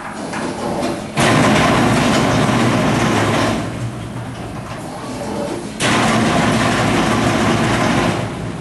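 Pomegranate aril-separating machine working through its cycle. Twice a loud rushing noise starts abruptly, lasts about two seconds and dies away, over a quieter steady running sound.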